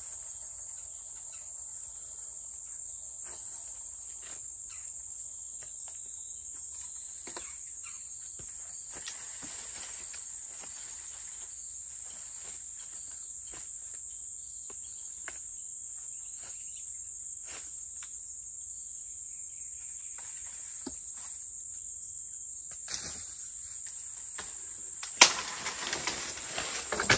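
Steady high-pitched drone of an insect chorus, with scattered faint taps and knocks of a stick against branches. Near the end a sharp crack, the loudest sound, is followed by about two seconds of rustling and crashing leaves and twigs as a dead branch is knocked down from the fence.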